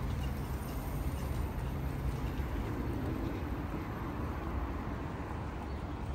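Steady city street background with a low rumble of traffic, even throughout.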